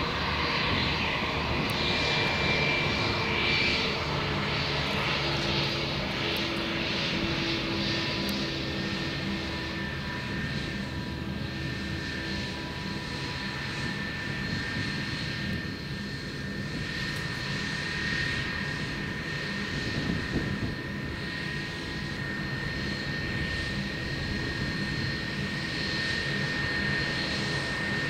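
Airbus A320's twin IAE V2500 turbofans running at low taxi power, a steady jet rumble with a high, even fan whine and no spool-up.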